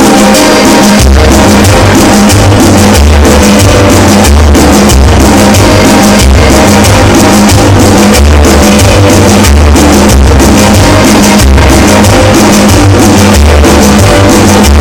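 Very loud dance music from a DJ's sound system, with a steady drum beat; a heavy bass line comes in about a second in.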